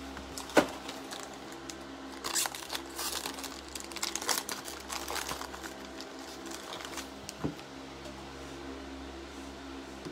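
Foil trading-card pack wrapper crinkling and tearing as it is handled and opened, in irregular rustles. There is a sharp click about half a second in and another, softer one later, over a steady low hum.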